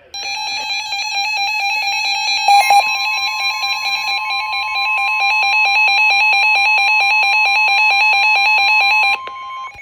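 A weather radio receiver's rapid pulsing alert beep, joined about two and a half seconds in by NOAA Weather Radio's steady 1050 Hz warning alarm tone. The beeping stops about nine seconds in and the tone just after: the alarm announcing an incoming severe thunderstorm warning.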